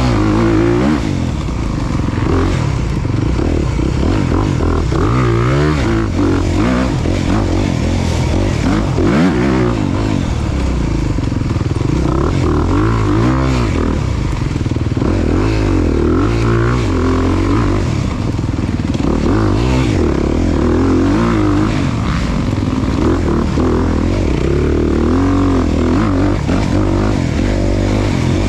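Off-road motorcycle engine running continuously under throttle, its pitch rising and falling over and over as the rider opens and shuts the throttle and works through the gears.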